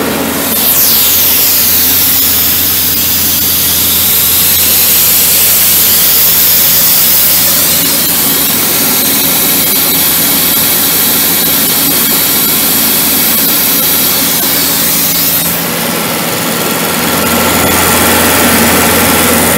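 The 1992 LeRoi 185 air compressor's John Deere four-cylinder diesel running steadily while compressed air blows out with a loud hiss. The hiss starts about half a second in and cuts off about fifteen seconds later, leaving the diesel running on.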